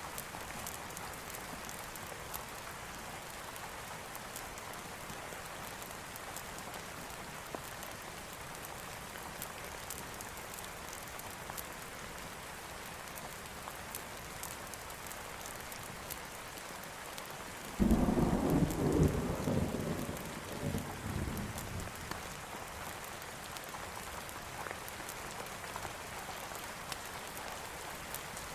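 Steady rain falling. About eighteen seconds in, a sudden thunderclap breaks in and rumbles away over about four seconds.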